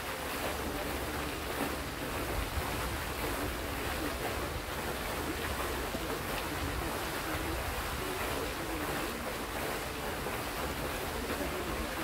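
A tall fountain jet in a pond, its column of water falling back and splashing onto the surface in a steady, even rush.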